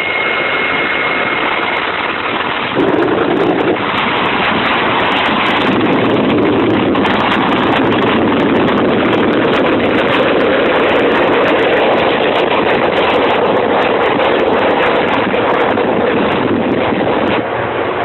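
Loud, steady vehicle noise with wind rushing over the microphone. It jumps louder suddenly about three seconds in.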